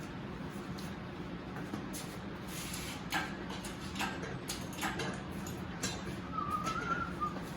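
Scattered light metal clicks and knocks, about one a second, from handling an engine hoist and engine stand while a heavy engine is being mounted, over a steady low hum, with a brief squeak near the end.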